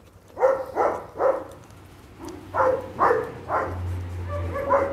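A dog giving short whining yips, about seven in two runs.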